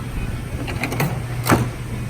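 A few light plastic clicks, then one sharp snap about one and a half seconds in, from handling the truck's fuse box to pull a fuse, over a steady low hum.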